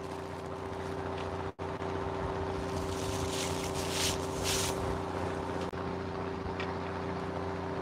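Fishing boat's motor running steadily, a low drone, with a few brief hissing rustles over it about three to four and a half seconds in.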